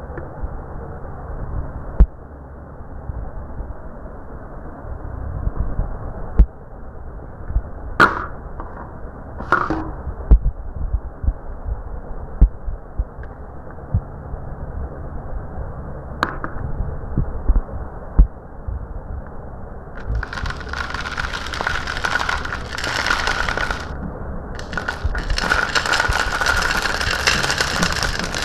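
Marbles rolling along a marble-run track: a low rumble with scattered sharp clacks, becoming a louder, brighter rattling rush about twenty seconds in, with a short break near the end.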